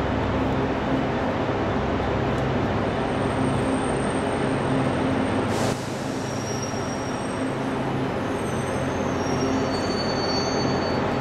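Loram rail grinder's diesel engines running in a steady low drone as the train approaches, with thin high wheel squeals coming and going in the second half and a single sharp crack near the middle.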